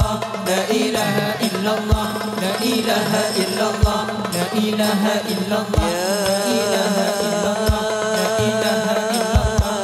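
Group of men singing sholawat, Islamic devotional songs in praise of the Prophet, in unison with a hadrah ensemble. A deep drum stroke sounds about every two seconds.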